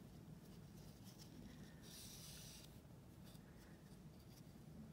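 Near silence with faint rustling of yarn drawn over a metal crochet hook as single crochet stitches are worked, with a brief louder rustle about two seconds in.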